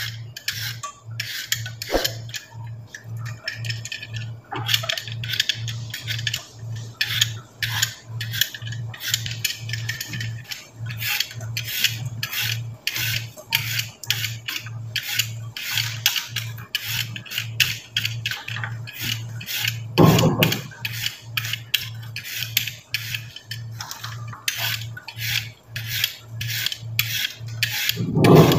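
Rhythmic scraping strokes of a blade peeling the skin off a taro root, about two strokes a second, over a steady low hum. Two louder thuds, one about two-thirds of the way through and one near the end.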